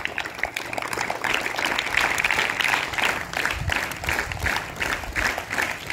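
A small group clapping their hands in applause, a steady patter of many quick claps.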